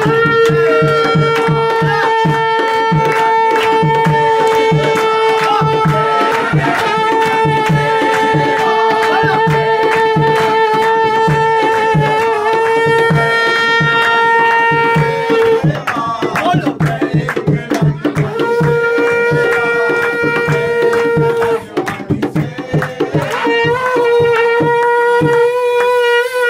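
Aarti devotional music: long, steady held notes over a steady drum beat of about two to three strokes a second, with hands clapping along. The held notes break off briefly about two-thirds of the way in and again near the end.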